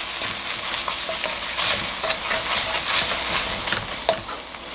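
Kimchi fried rice with chopped chives sizzling in a stainless steel pan over high heat, stirred and scraped round the pan with a wooden spatula in quick repeated strokes.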